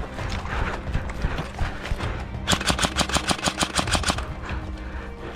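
Hurried footsteps and rustling of a player on the move. About two and a half seconds in, a full-auto burst from an airsoft gun lasts about a second and a half, at roughly ten shots a second.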